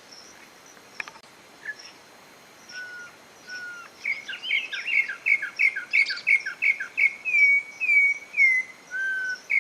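Campo troupial (corrupião) singing: a few separate clear whistles at first, then from about four seconds a fast run of repeated two-note whistled phrases, ending in a couple of longer slurred notes. Fainter high chirps from other birds sound behind it.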